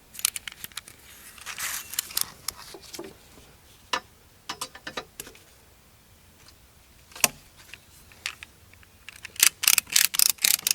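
Retractable ratchet strap being handled: scattered metal clicks and clinks, then a quick run of loud ratchet clicks near the end.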